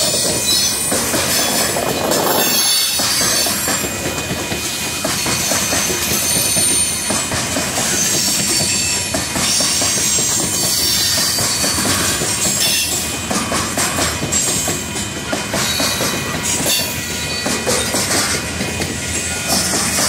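Covered hopper cars of a Union Pacific grain train rolling past at speed: a steady rumble and clatter of steel wheels on the rails, with brief high wheel squeals now and then.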